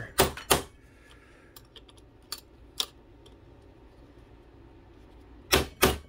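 Rubber mallet striking a cutting-board plastic block held against a bent aluminium RC boat rudder, tapping the bent edge back into shape. Two sharp blows just after the start and two near the end, with a few light taps and clicks in between.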